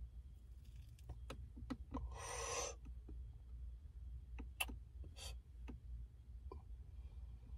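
Faint sounds inside a car: a low steady hum, scattered light clicks and taps, and a short hiss about two seconds in, with a briefer one near the end.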